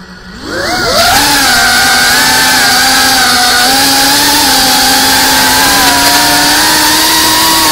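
Geprc Cinelog 35 cinewhoop's brushless motors and ducted propellers spinning up about half a second in as the drone lifts off, then a loud steady buzzing whine that wavers slightly in pitch with the throttle. It is heard from the camera mounted on the drone.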